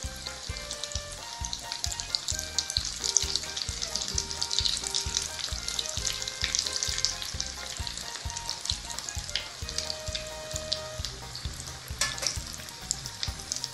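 Breadcrumbed chicken cutlets deep-frying in hot oil in a pan, with a steady sizzle and crackle.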